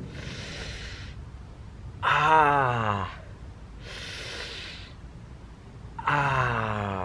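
A young man crying out in pain from a hurt knee: two loud wails, each falling in pitch, with sharp breaths hissed through clenched teeth before each.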